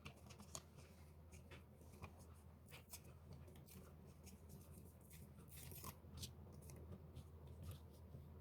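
Faint paper-craft handling: scattered light clicks, snips and rustles of paper and small tools, with a longer rustle about five and a half seconds in, over a low steady hum.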